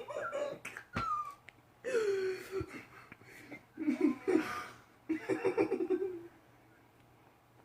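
A person laughing in several wheezing bursts, four in all, breaking off about six seconds in.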